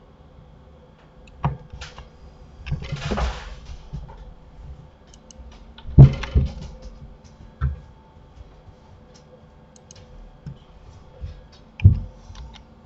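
Scattered computer keyboard keystrokes and mouse clicks, a few sharp clicks with the loudest about six seconds in. A short breathy hiss comes around three seconds in.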